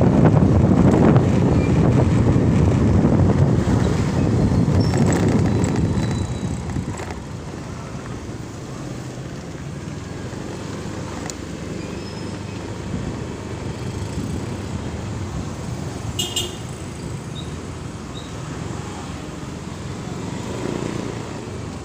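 Motorcycle ride heard from the rider: wind rush and engine running, loud for the first six seconds or so, then dropping quieter as the bike slows in traffic. A brief high beep sounds about sixteen seconds in.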